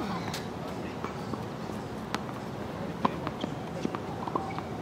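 Tennis ball bouncing on a hard court: scattered sharp knocks, then a quicker run of smaller bounces in the last two seconds as the ball is bounced before a serve.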